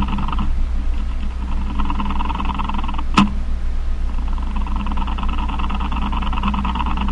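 Male spider's courtship noise: a buzz of rapid pulses coming in bouts of a second or more with short pauses between, over a steady low hum. A single sharp click about three seconds in is the loudest moment.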